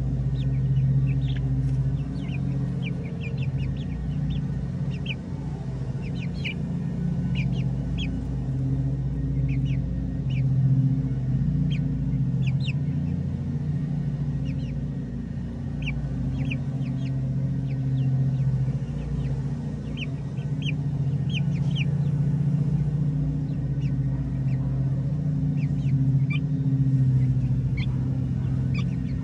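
Young chickens giving many short, high peeps while they feed, over a steady low mechanical hum that is the loudest sound throughout.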